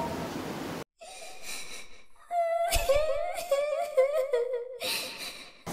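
A child crying, in short wavering sobbing wails that start about two seconds in after a brief silence.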